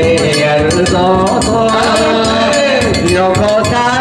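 Danjiri float's festival music: drum and small gongs beating a steady, quick rhythm, about four strokes a second, with men's voices singing a drawn-out hauling song over it.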